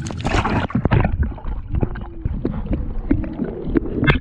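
Irregular knocks and water sloshing against a small anchored fishing boat, over a low rumble.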